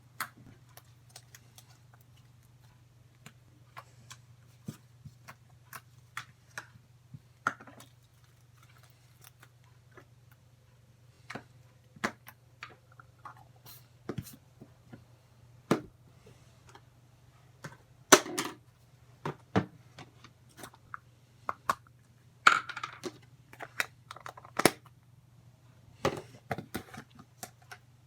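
Slime being handled, making irregular sharp clicks and pops, with a few brief crackling bursts about two-thirds of the way in, over a steady low hum.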